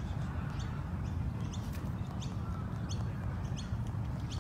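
Birds chirping: short, thin, high chirps repeat about twice a second over a steady low rumble.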